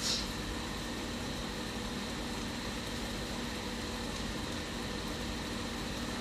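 Steady low machine hum with a hiss from kitchen appliances, while an omelette cooks over a lit gas burner; a short click right at the start.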